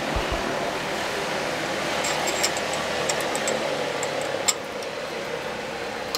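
Light metallic clicks and clinks from a hand tool being worked into an aircraft alternator's fitting, over a steady background hum. The sharpest click comes about four and a half seconds in.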